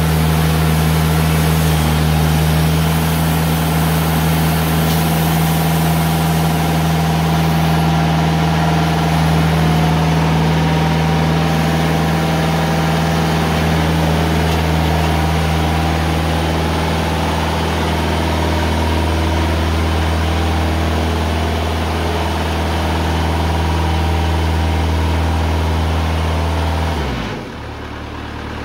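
TimberKing 2000 bandsaw sawmill running steadily as its blade makes a slow cut through a poplar log. Near the end the engine drops suddenly to a lower, quieter speed as the cut finishes.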